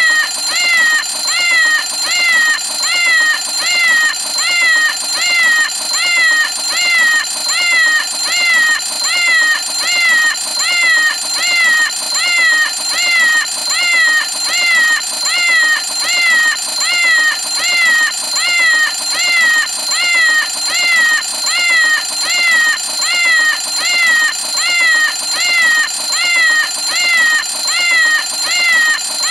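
Cartoon 'Meow o' Clock' cat alarm clock ringing: a meow call repeating about once a second, over a steady high ringing tone.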